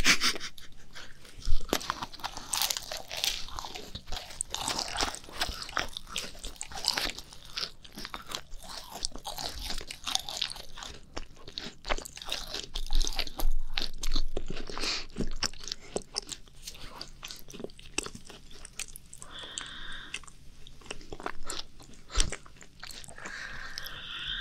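Macarons being bitten and chewed close to the microphone by two people: crisp crunches of the shells and soft chewing, in irregular bursts.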